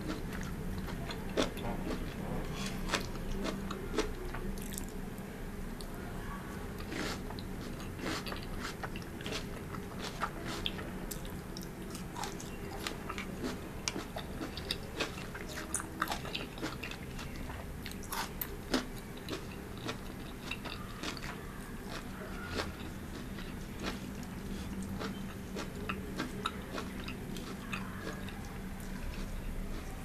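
Close-miked chewing of a mouthful of stir-fried vegetables and noodles, with many small, sharp crunches and mouth clicks at an irregular pace.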